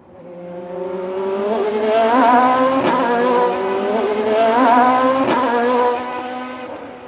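Racing car engine accelerating hard through the gears, its pitch climbing and dropping back at two gear changes about three and five seconds in, then fading away.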